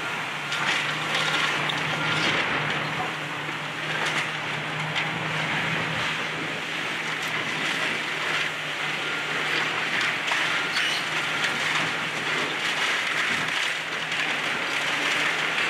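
Hydraulic demolition excavator working a grapple into a brick wall and roof: its diesel engine runs steadily under a continuous crunching and clattering of breaking brick and splintering timber.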